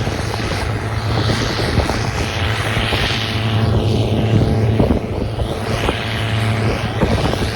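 Combine harvester running steadily while picking corn: a constant low engine hum under a noisy rush, with a few short clicks.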